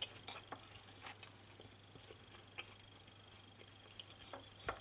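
Faint, scattered clicks and taps of apple slices and soft feta cheese being handled on a china plate, with one sharper click near the end.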